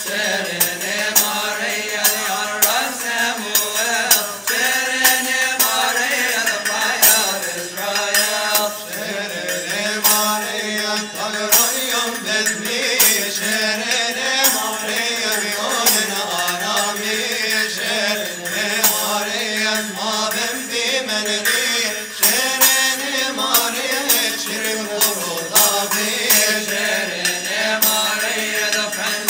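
Coptic Orthodox liturgical chant: voices singing a slow, wavering hymn melody, with frequent percussion strikes of hand cymbals keeping the beat.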